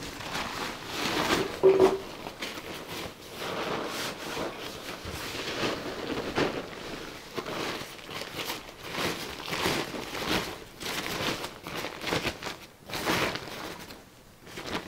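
Gear being handled and packed: irregular rustling and crinkling of bags and fabric, with a short knock about two seconds in.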